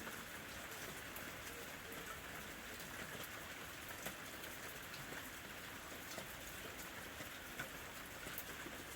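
Steady rain falling, with individual drops tapping on a surface throughout.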